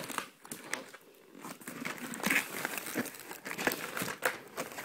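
Plastic packaging crinkling, with scattered clicks and knocks from handling a toy blaster's drum magazine, and a short lull about a second in.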